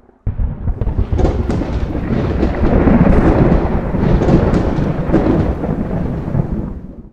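Thunder sound effect: a heavy rumble that starts suddenly, with crackles running through it, rolling on for several seconds and fading out near the end.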